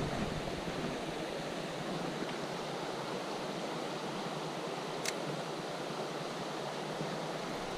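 Steady rushing hiss of flowing creek water, with a faint single click about five seconds in.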